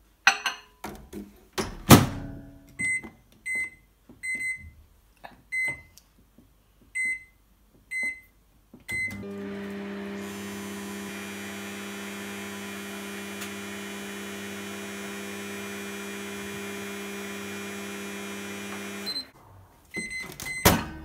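De'Longhi microwave oven: its door shuts with a loud thud, the keypad beeps about eight times, then the oven runs with a steady hum for about ten seconds, heating butter to melt it. The hum stops, more beeps follow, and the door latch clicks open near the end.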